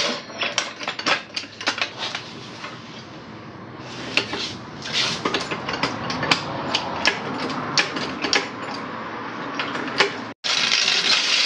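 Irregular metal clinks and knocks of lifting gear and tools being worked against the underside of a motorcycle as it is being raised by its bash plate. The sound cuts out for a moment near the end.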